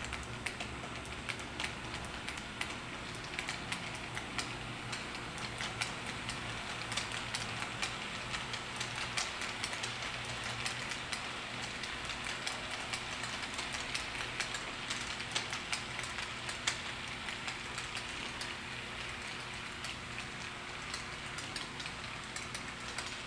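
Model train freight cars rolling past on layout track: a dense, continuous patter of tiny clicks as the small metal wheels run over the rail joints, over a light rolling hiss.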